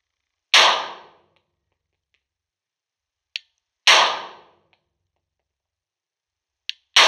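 Three single shots from a Glock 21 .45 ACP pistol, about three seconds apart, each with a short echoing tail. A faint short click comes shortly before the second and third shots.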